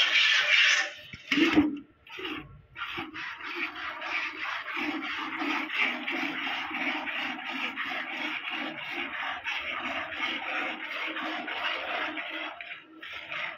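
Background music cuts off about a second in. Then a cow is hand-milked into a steel bucket: streams of milk squirt into the bucket in a quick, even rhythm of strokes as the teats are squeezed in turn.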